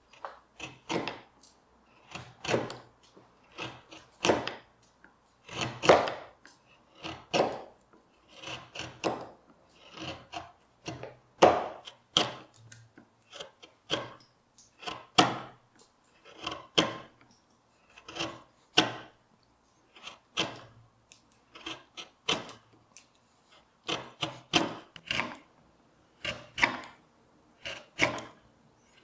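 Hand carving gouge paring walnut: a series of short shaving cuts, each a brief scrape, coming about one or two a second with short pauses between.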